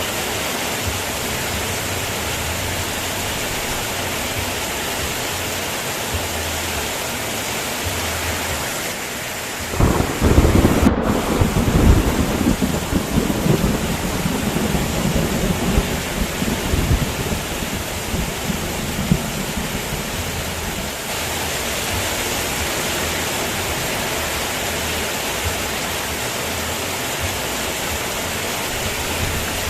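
Steady heavy rain, with a thunderclap about ten seconds in that rumbles on for several seconds and fades away.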